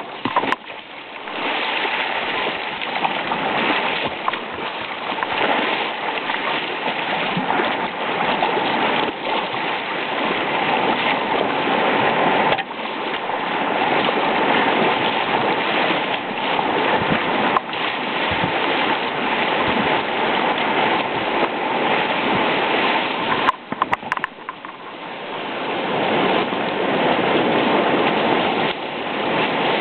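Rushing whitewater of a river rapid, heard from a kayak out in the current. The rush drops away suddenly for a moment about halfway through, and again for a second or two about three quarters of the way in.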